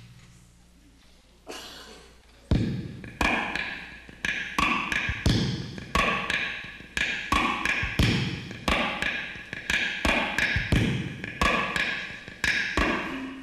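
Rhythmic percussive taps and knocks struck on the body of an amplified kalimba, each strike ringing briefly. After a single knock, a steady groove starts about two and a half seconds in, with a strong accent about every two-thirds of a second and lighter taps between.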